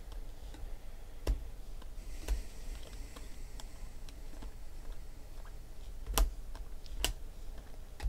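Topps Chrome baseball cards being flicked through and set aside one at a time: light ticks and clicks of stiff, glossy card stock, with a few sharper snaps, two of them close together near the end.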